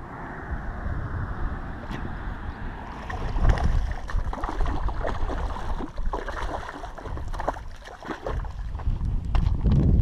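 Hooked bass thrashing and splashing at the water's surface while it is reeled in against the bank, in quick irregular splashes for several seconds, with wind rumbling on the microphone.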